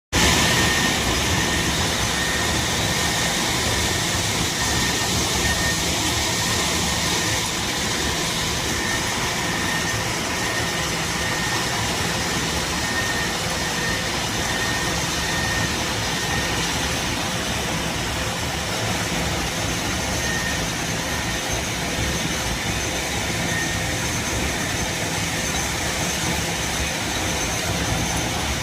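Heavy quarry machinery running steadily, a constant mechanical din with a thin high whine that comes and goes.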